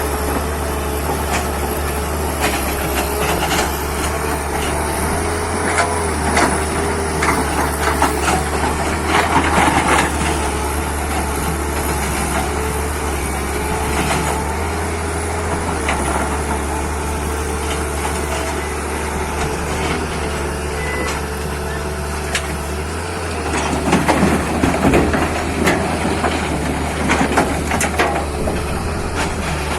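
Tata Hitachi 200 excavator's diesel engine running steadily with a wavering hydraulic whine. Twice, a run of rocks clatters and knocks, once about a quarter of the way in and again near the end, as stones are dumped into a truck's steel bed.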